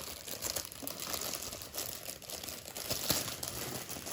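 Plastic fidget pop tube being stretched out and pushed back in, making an irregular crinkly crackling with a few sharper clicks; the toy is a loud one.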